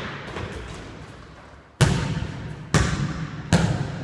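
A basketball being dribbled on a hard floor: after a pause of nearly two seconds the bounces start again, three of them about 0.8 s apart, each echoing briefly.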